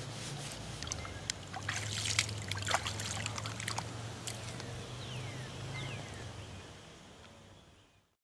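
Water splashing and trickling over a low steady hum, with two short falling chirps midway; the sound fades out near the end.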